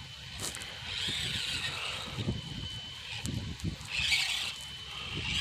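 Axial SCX24 Deadbolt 1/24-scale RC crawler driving: its small electric motor and gearbox give a thin high whine that comes and goes with the throttle, over scattered low knocks and rubbing of the tyres on the ground.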